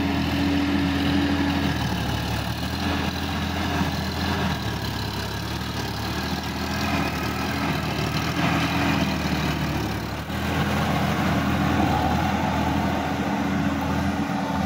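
Sonalika DI-50 RX tractor's diesel engine running steadily while it drives a rotary tiller through wet paddy mud.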